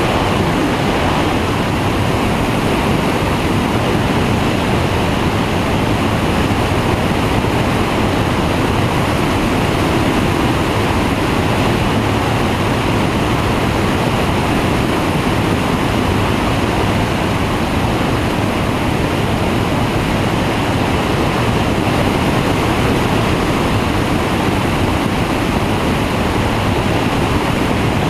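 Flexwing microlight trike in cruise flight: its engine and pusher propeller run under a steady, loud rush of wind over the microphone.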